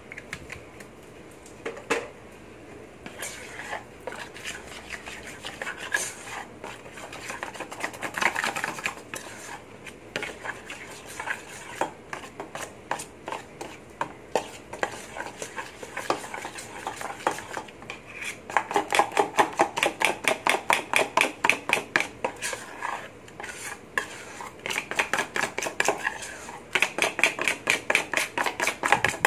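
Metal spoon stirring a thick flour-and-water batter in a stainless steel bowl, clinking against the bowl's side again and again. The clinks come in quick rhythmic runs, loudest in the second half.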